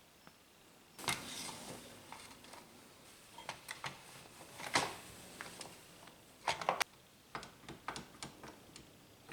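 Irregular light clicks, knocks and short scrapes of small wooden jig parts and hand tools being handled and set down, with the loudest scrape-and-knock clusters about a second in, near the middle and about two-thirds of the way through.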